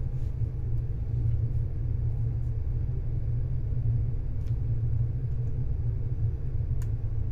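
Steady low rumble of a ship's machinery below decks, with a faint hum over it.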